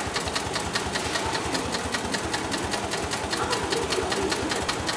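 Sailmaster 9366HM heavy-duty long-arm zigzag sailmaker's sewing machine stitching cloth, its needle clattering in a fast, even rhythm of several strokes a second.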